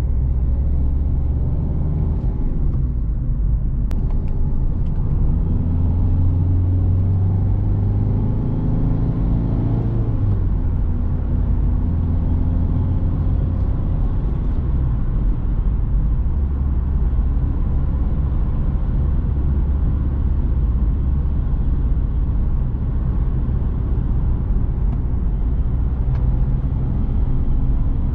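Citroen C3 Picasso's 1.6 HDi four-cylinder turbodiesel heard on board while driving. The engine note rises in pitch for several seconds, drops about ten seconds in, then settles into steady running with low road rumble.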